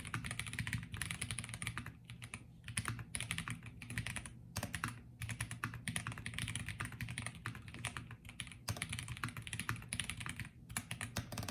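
Mechanical keyboard with Invyr Holy Panda tactile switches on an aluminium plate and PBT keycaps, typed on at a steady fast pace: a rapid run of keystroke clacks with a few short pauses.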